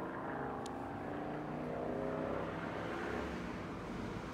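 A motor vehicle going by, its engine a steady hum that swells toward the middle and eases off near the end.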